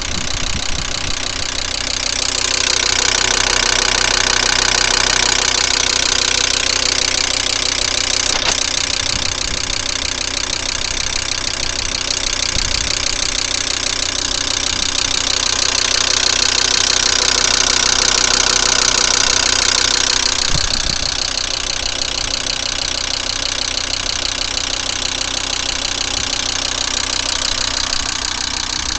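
Volkswagen Crafter 2.5 TDI five-cylinder diesel engine idling with a rapid, steady knock, swelling louder twice. The knock appeared after a start on a frosty morning, and its cause is unknown to the owner.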